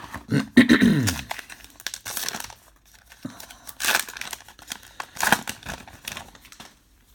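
Baseball card pack wrapper being torn open and crinkled by hand, in several short crackling bursts.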